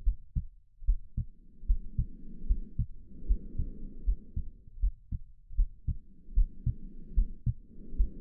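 Human heartbeat, a lub-dub pair of low, muffled thumps about every 0.8 s (roughly 75 beats a minute). Under it, slow breathing swells and fades as a soft low whoosh every couple of seconds.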